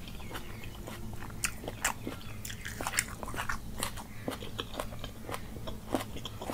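Close-miked chewing of curry and rice eaten by hand, with irregular wet lip smacks and mouth clicks.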